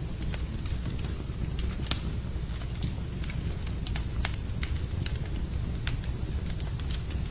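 Fire burning in a fireplace: a steady low rumble of flames with irregular sharp crackles and pops, a few a second, the loudest about two seconds in.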